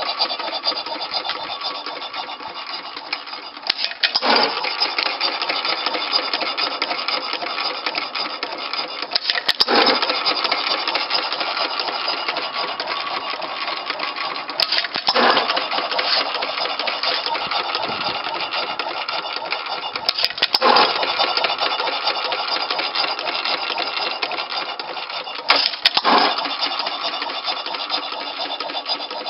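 1 3/4 hp Economy hit-and-miss gas engine running. It fires with a loud bang about every five and a half seconds, five times in all, and coasts between the firings with a steady rapid clatter of valve gear and governor.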